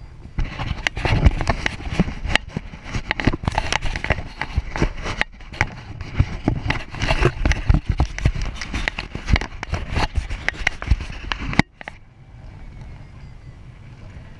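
Wind rushing and buffeting over the microphone in paragliding flight, gusty and crackling with a deep rumble. It drops off suddenly about three-quarters of the way through to a quieter, steadier rush.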